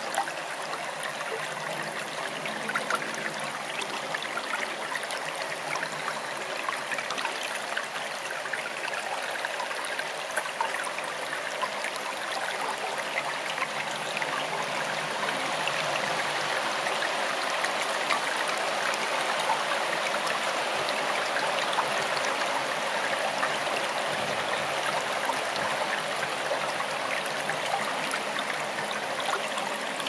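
Forest stream flowing: a steady rush and trickle of running water, a little louder from about halfway through.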